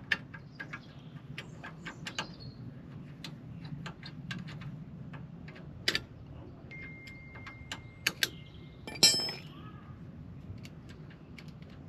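Hand tools and metal parts clinking and knocking in scattered light clicks during work on the van's wheel hub and driveshaft. A thin squeal runs for over a second about seven seconds in, and the loudest clank comes about nine seconds in.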